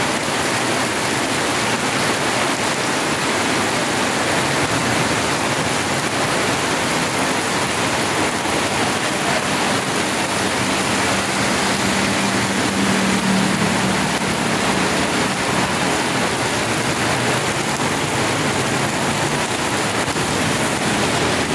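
Heavy rain pouring onto a flooded road, a steady dense hiss of drops striking standing water. A low hum swells and fades around the middle.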